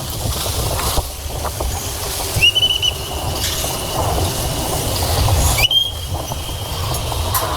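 Whistle signals from a Chao Phraya express boat docking at a pier: a short trilled blast about two and a half seconds in, then a long held blast from a little before six seconds, over the steady low rumble of the boat's engine.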